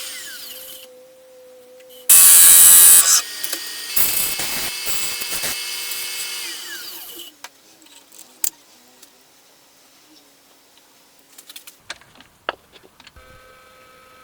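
Electric power tool working wood: a loud, hissing cutting burst, then a longer run whose motor pitch falls as it spins down. Afterwards come scattered light clicks and taps.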